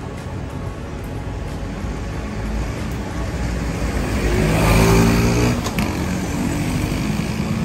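A motor vehicle passing close by in street traffic; its engine noise swells to a peak about five seconds in, then eases off.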